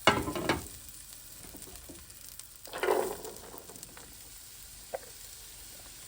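Onions and celery sautéing in oil and butter in a pan: a steady sizzle, with louder stirring scrapes at the start and about three seconds in and a short click near the end.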